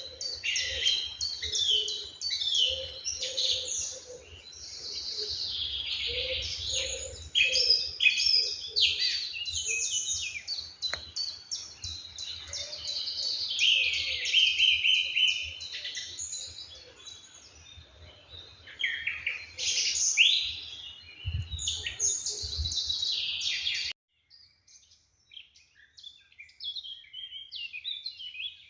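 Morning chorus of several songbirds singing and chirping at once, many overlapping trills and calls, with some lower repeated notes beneath them and a low background rumble. About 24 seconds in, the rumble cuts off abruptly and quieter bird calls continue.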